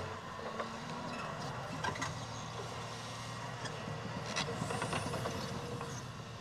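Caterpillar 323 hydraulic excavator's diesel engine running steadily as the machine swings its bucket and moves, with a few short metallic clanks about two, four and five seconds in.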